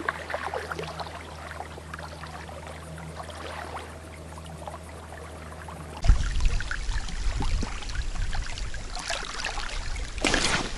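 River water lapping and trickling at the bank. About six seconds in the sound jumps abruptly louder, with a low rumble, and a short loud rush comes shortly before the end.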